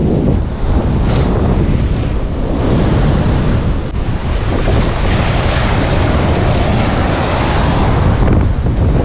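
Strong wind buffeting the microphone, with the steady rush of breaking surf underneath.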